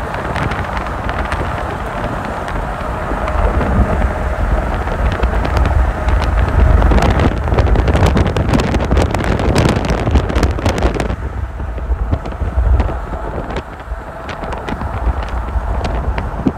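Steady running noise of a moving vehicle, a low rumble with wind buffeting the microphone and a stretch of dense crackles and clicks in the middle that thins out after about eleven seconds.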